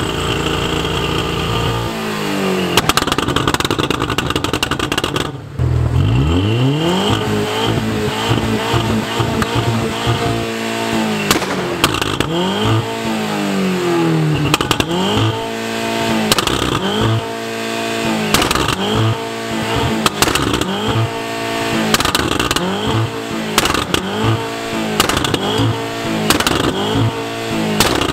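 Audi A4 engine revved hard over and over while the car stays put, its pitch rising and falling about once a second by the end, with sharp cracks scattered through. The gearbox has failed into what is effectively neutral, so the engine free-revs without moving the car.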